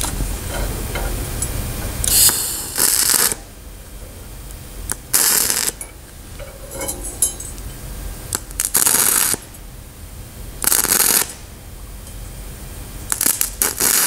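TIG welding arc on a steel-to-brass joint, struck five times in short bursts of about half a second to a second, each a harsh crackling hiss. The arc spits sparks and gives off white fumes as the zinc in the brass boils off, which makes it sound unlike TIG welding on plain steel.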